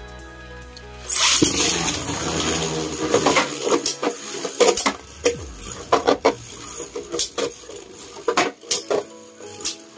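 Two Beyblade Burst spinning tops launched together into a plastic stadium about a second in, whirring as they spin, then clacking sharply against each other and the stadium wall several times as they battle.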